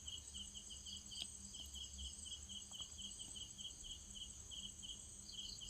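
Crickets chirping in an even rhythm, about three chirps a second, over a steady high insect drone, with a faint click or two.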